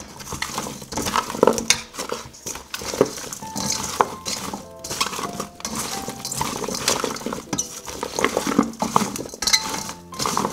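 Tongs tossing chopped butternut squash, bell peppers and red onion in a stainless steel mixing bowl: a busy run of clinks and scrapes against the bowl, with the vegetable pieces shuffling.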